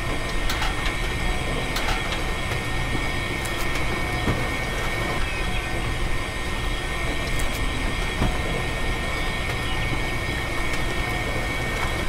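A small electric motor running steadily with a thin, high whine and a low rumble, with a few light clicks.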